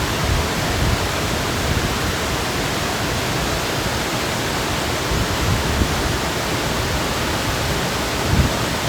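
Waterfall rushing in a steady, even roar of falling water, with a few low thumps near the microphone.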